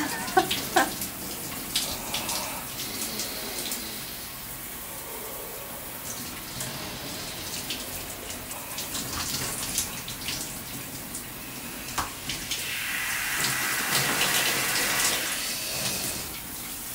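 Shower head spraying water steadily in a small bathroom, with a few splashes and clicks early on. About twelve seconds in the spray gets louder for a few seconds as it runs over a person's head and body.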